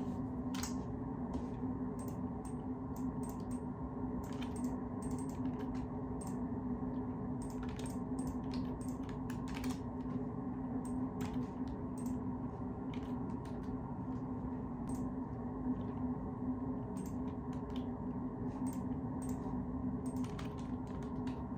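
Computer keyboard typing: irregular key clicks, several a second, over a steady low hum.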